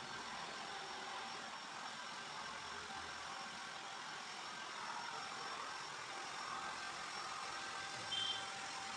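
Steady machine hum with an even hiss and a few constant tones, and a brief high squeak near the end.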